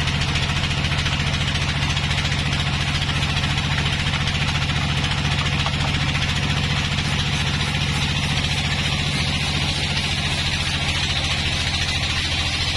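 Band sawmill running steadily: a low, even engine-like hum with a constant high hiss over it.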